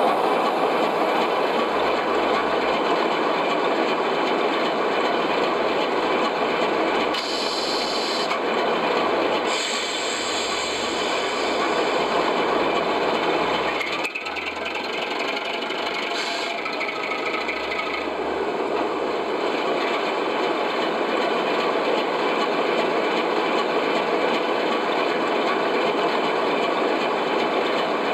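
O gauge model train running on garden railway track: a steady mechanical rattle and whir from the locomotives and wagons.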